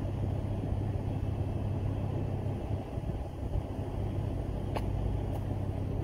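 Ford Focus ST225's turbocharged 2.5-litre five-cylinder engine idling steadily with a low, even exhaust rumble. A few faint footsteps tick near the end.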